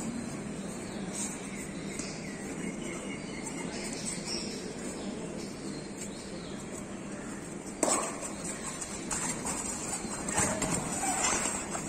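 Steady murmur of an indoor kabaddi hall, with a single sharp slap about eight seconds in, then louder scuffling and scattered sharp noises as defenders tackle the raider on the mat.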